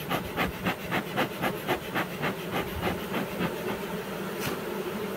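Bee smoker's bellows pumped rapidly, about four puffs of air a second, fading out after about three and a half seconds. A single sharp knock follows, and bees buzzing grows louder near the end.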